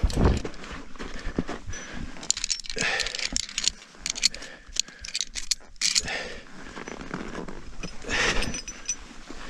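Via ferrata carabiners and lanyard clinking and rattling against the steel safety cable as the climber moves along it, with crampon steps on snow and rock: a dull thump at the start, then a run of sharp metallic clicks and rattles.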